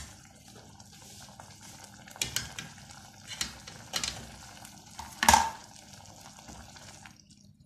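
Potato curry bubbling at a boil in an aluminium pot, with several sharp metal clinks from pot tongs gripping the pot's rim, the loudest about five seconds in. The bubbling cuts off abruptly about seven seconds in.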